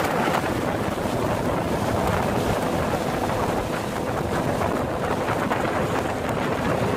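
Small fishing boat running at speed across open water: a steady outboard engine drone mixed with rushing water off the hull and wind buffeting the microphone.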